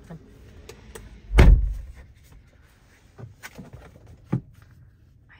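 A car door slams shut once, heard as a heavy thump from inside the car's cabin, followed by a few faint clicks.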